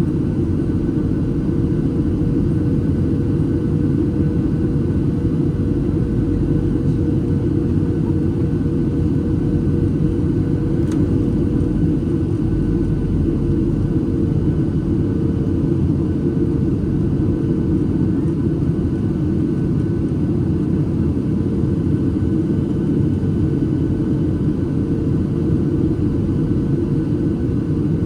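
Steady cabin noise inside a Boeing 737-800 in flight: an even low rumble of its CFM56 engines and the airflow past the fuselage, with a thin steady hum above it.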